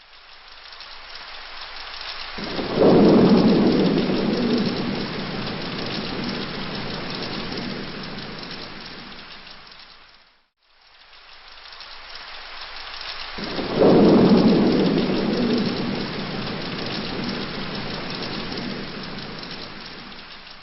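Steady rain with two thunderclaps, about two and a half and fourteen seconds in. Each rumbles and slowly dies away under the rain. The same stretch of storm seems to play twice, fading out and back in near the middle.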